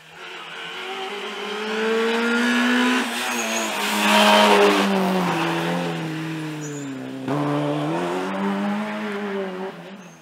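Rally car engine passing at speed: the revs climb, dip and pick up again about three seconds in, and the engine is loudest as it goes by around four to five seconds. The pitch then falls, jumps back up near seven seconds and fades as the car draws away.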